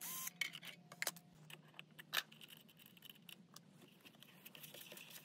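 Bosch cordless drill-driver whirring for a moment at the start as it turns a screw on the belt sander's arm. After that come light clicks and rattles of the screws and metal sanding arm being handled, with one sharper click a little after two seconds.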